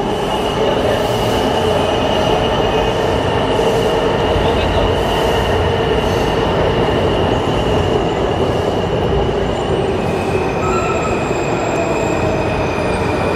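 Washington Metro subway train running close alongside the platform as it pulls into the station: a steady loud rumble of wheels on rails with high whining tones over it. About ten seconds in, the highest whine drops a little in pitch.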